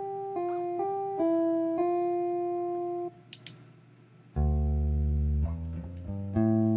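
Kontakt jazz guitar sample instrument played note by note: about five held single notes in the middle register, then after a short pause a run of lower held notes.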